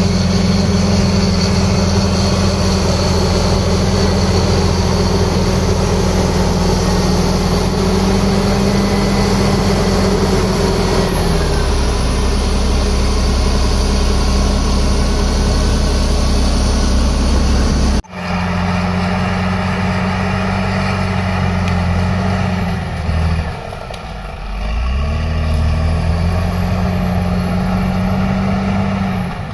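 Caterpillar crawler bulldozer's diesel engine running steadily as the dozer pushes earth. About eleven seconds in, the engine note drops lower. The sound breaks off abruptly, then the engine comes back, and about two-thirds through its revs sag and climb back up.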